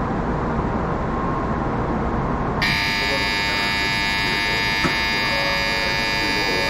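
Platform departure buzzer sounding steadily for about five seconds, starting suddenly about two and a half seconds in: the signal that the Shinkansen's doors are about to close for departure. A steady background hum underlies it.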